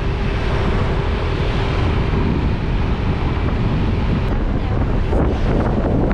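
Wind buffeting the microphone on a moving motor scooter, a steady, loud rush with the scooter's engine running underneath.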